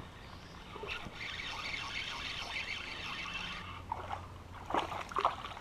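Water trickling and splashing, with a run of sharper, louder splashes in the last second or two.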